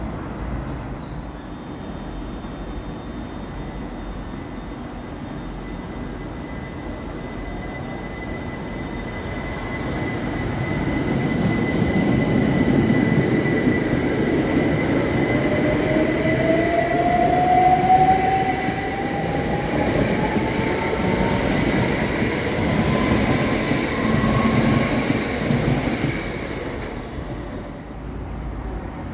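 A c2c Class 357 Electrostar electric train runs along the platform, growing louder over several seconds and fading near the end. Its traction motors whine in a tone that climbs steadily in pitch as the train gathers speed, over a steady high whistle.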